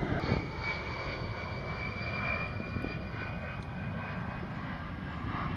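An A-10 Thunderbolt II's twin TF34 turbofan engines heard in flight at a distance: a steady rushing roar with a high jet whine over it that swells about two seconds in and then eases.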